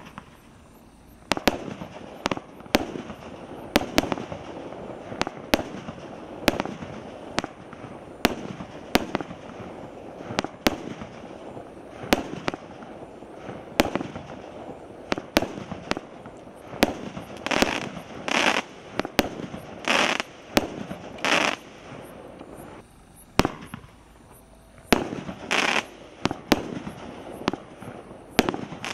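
Multi-shot consumer aerial firework firing a steady run of single shots, each a sharp bang, about one every three-quarters of a second. A few longer, noisier bursts come past the middle and again near the end, after a short lull.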